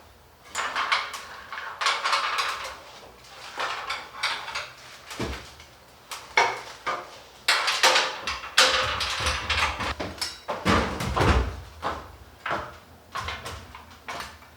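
Irregular scraping, rubbing and knocking of hands-on work, with dull thumps about five seconds in and again near eleven seconds.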